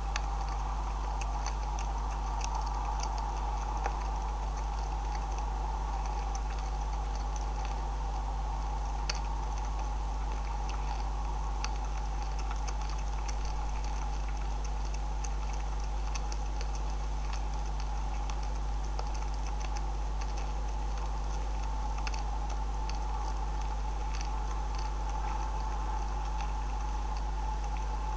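Two North American beavers feeding on seed and grain, their chewing and crunching heard as rapid, irregular small clicks, over a steady hum from the camera's microphone.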